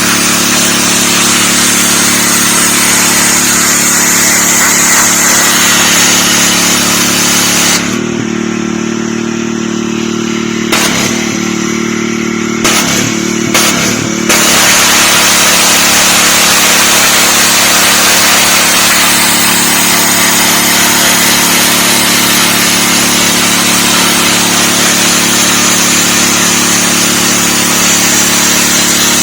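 Dewalt 3600 psi gas pressure washer running: its engine hums steadily under the hiss of the high-pressure spray. About eight seconds in the spray stops for some six seconds, broken by a few short squirts, leaving the engine running on its own, then the spray starts again.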